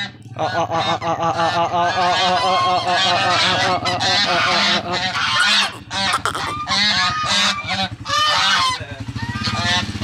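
A small flock of white domestic geese honking, many rapid calls overlapping one another, with a short lull about five and a half seconds in. A steady low hum runs underneath.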